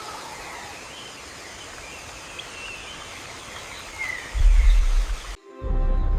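Steady outdoor ambience with faint bird chirps. About four seconds in, a loud, deep rumble comes in for about a second and cuts off abruptly. After a short silence, a deep rumble with held musical tones starts near the end.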